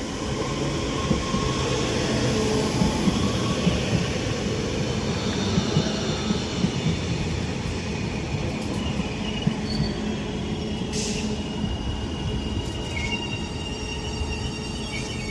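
Four-car Northern Class 331/1 electric multiple unit running into the platform and slowing to a stop, with wheel and brake squeal coming in as thin high tones during the second half.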